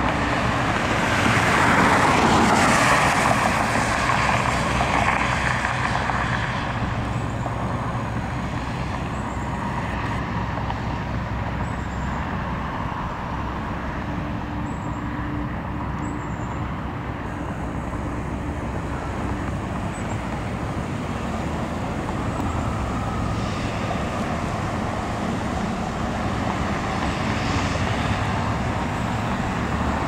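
Road traffic on a multi-lane street: cars passing with a steady hum of tyre and engine noise, one louder vehicle passing close in the first few seconds.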